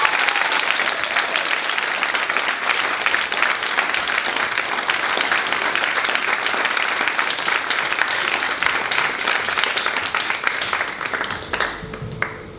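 Audience applauding steadily, a dense clatter of many hands clapping that dies away near the end.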